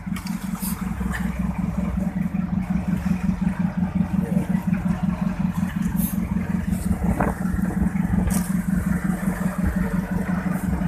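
A boat engine running steadily with a fast, even pulse, with a few short knocks now and then.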